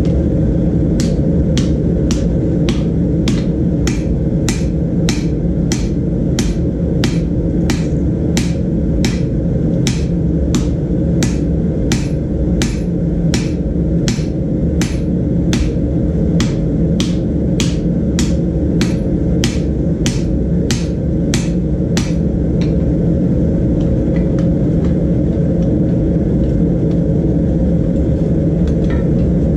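Hand hammer striking red-hot steel, a piece of lawn mower blade, on an anvil while forging a pickaroon head: sharp blows at about two a second that stop about 22 seconds in. A loud steady roar from the gas forge runs underneath throughout.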